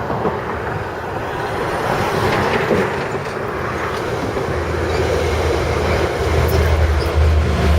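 Metrolink commuter train drawing into the station, its low diesel rumble coming in about halfway through and growing louder over a steady background noise.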